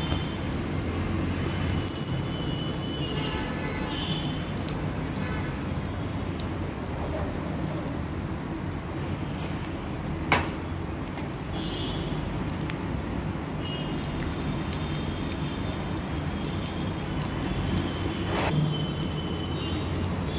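Raw banana tikkis shallow-frying in hot oil in a nonstick pan: a steady sizzle, with one sharp click about halfway through.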